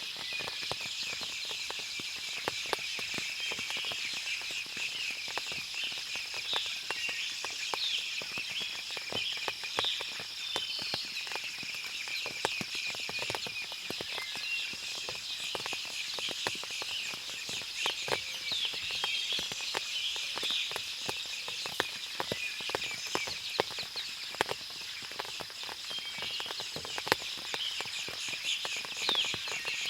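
Forest soundscape after rain: many birds chirping and calling over a steady high-pitched drone, with frequent light ticks scattered throughout.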